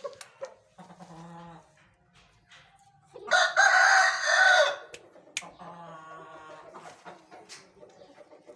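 A rooster crows once, loud and long, a little over a second in length, starting about three seconds in. Softer, low repeated calls come before and after it.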